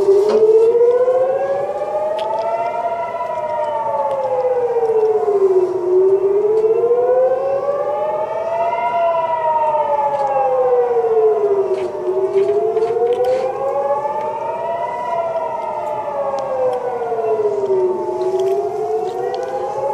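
Civil defence air-raid siren wailing, a chord of tones rising and falling together in a slow cycle about every six seconds. It is a rocket alert warning of incoming fire.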